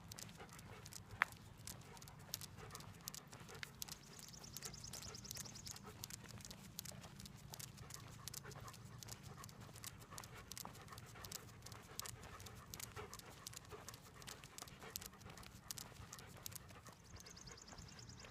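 A dog panting, with many small clicks and taps throughout and a faint high trill twice.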